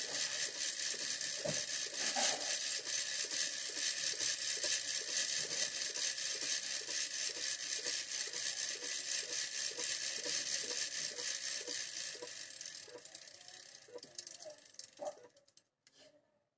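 Coil winding machine spinning an output transformer bobbin, laying copper magnet wire: a steady whirring hiss with a regular tick two to three times a second. It fades as the machine winds down and stops near the end, followed by a few light clicks.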